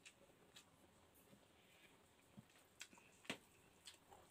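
Faint wet mouth sounds of someone chewing a mouthful of soft noodles: a few sparse, short smacking clicks, the sharpest about three seconds in.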